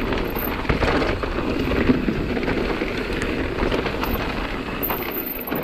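Mountain bike descending a dirt trail: a steady rush of tyre noise on the dirt with frequent clattering and knocking as the bike rattles over roots and stones.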